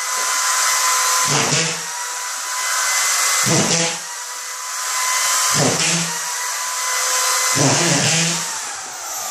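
DeWalt drywall screw gun running with a steady high whine. Its clutch engages with a short grinding burst each time a drywall screw is driven into the board, about every two seconds, four screws in all.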